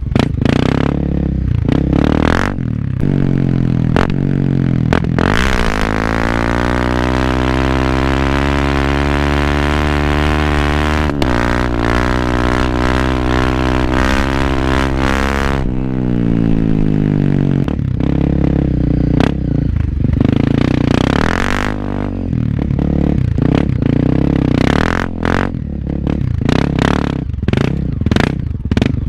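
Honda CRF250L's single-cylinder four-stroke engine through an FMF aftermarket exhaust, blipping on and off the throttle in short bursts at first. In the middle it makes one long pull whose pitch climbs, holds, then drops away about halfway through. After that it is choppy on-off throttle again.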